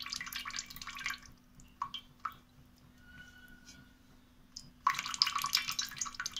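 Wet handling sounds of soaked gulab jamun being lifted out of sugar syrup by hand, with syrup dripping back into the bowl. They come in two bursts, one in the first second and another from about five seconds in.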